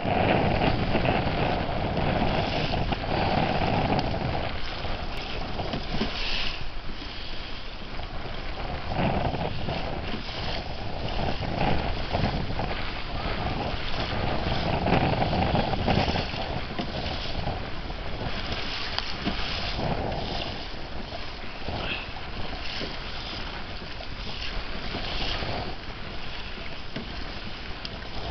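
Wind buffeting the microphone and choppy sea slapping and splashing against the hull of a Hobie Pro Angler 14 kayak, in surges that rise and fall every few seconds.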